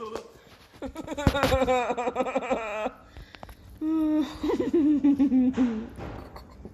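Laughter in two stretches, wavering and giggly, the second louder, with one sharp smack of a flip-flop about a second in.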